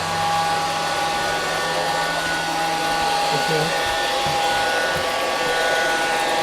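Robotic vacuum cleaner running: a steady whir from its motor and fan, with a constant high whine.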